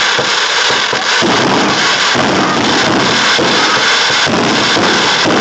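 A dense, unbroken barrage of fireworks: launches and bursts overlap into one continuous loud crackle, growing heavier about a second in.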